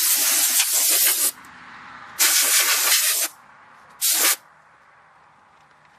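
Compressed air blowing dust off a desktop PC's motherboard, in three hissing blasts: two of about a second each and a short one about four seconds in.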